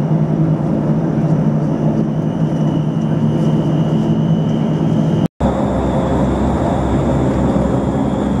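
Rolls-Royce Dart turboprop engines of a Fokker F27 heard from inside the cabin while taxiing: a steady drone with a thin high whine. About five seconds in, the sound drops out for an instant, then resumes with a higher whine and a heavier low rumble.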